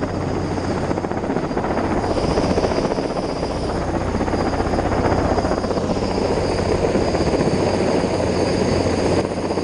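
Sikorsky S-58T heavy-lift helicopter hovering overhead, its rotor and turbine noise steady throughout, with a constant high turbine whine over a low rotor drone.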